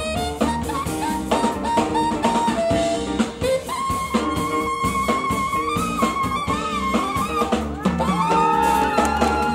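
Live jazz-funk band with a horn section, drum kit and bass. A saxophone plays quick runs, then holds one long high note about four seconds in. Near the end several horn notes are held together and bend in pitch.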